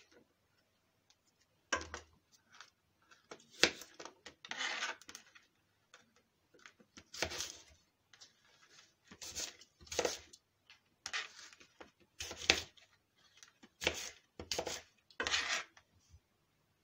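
Kitchen knife cutting an apple into cubes on a plastic cutting board: about a dozen separate short cuts at an uneven pace, with quiet gaps between.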